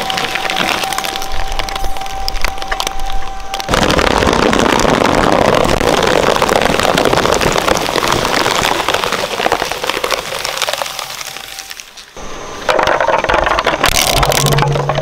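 Twin-shaft shredder's hooked cutting discs crunching and tearing through a plush toy and a cardboard box of items: dense, continuous crackling, with a steady thin whine under it at first. The sound changes abruptly about four seconds in, dips, and starts again sharply near twelve seconds.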